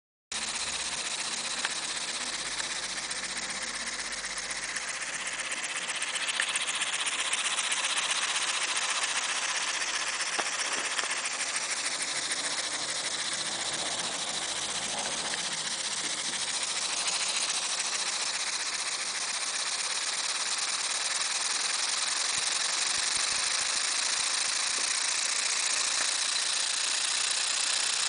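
Tiny transparent two-cylinder opposed air engine running fast on compressed air: a steady, high hiss of air through its cylinders and exhaust ports.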